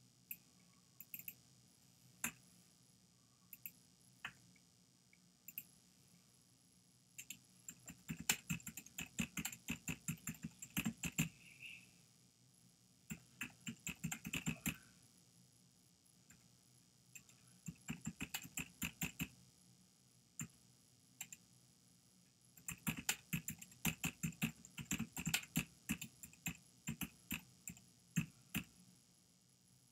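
Typing on a computer keyboard: several runs of rapid key clicks with short pauses between, and a few single taps before the first run.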